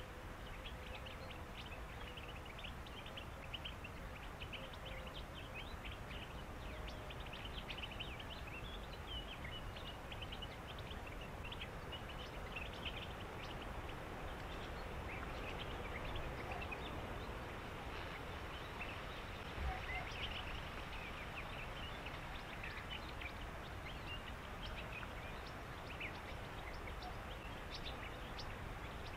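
Evening chorus of animal calls from a reedbed: many short, high chirps and calls, overlapping throughout, over a steady background hiss and low rumble.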